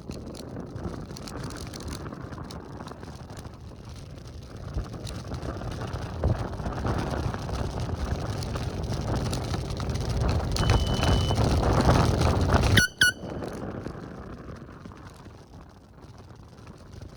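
Rushing wind and road noise while riding an electric scooter, building louder over several seconds. A brief high beep comes near the middle. The noise cuts off abruptly about thirteen seconds in with a short rising chirp, and a quieter stretch of the same kind follows.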